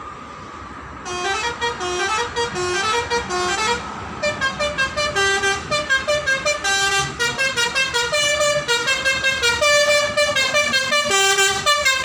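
Telolet horn of a yellow Bentas intercity bus playing a fast tune: quick runs of short notes stepping up and down several times a second. It starts about a second in and keeps going.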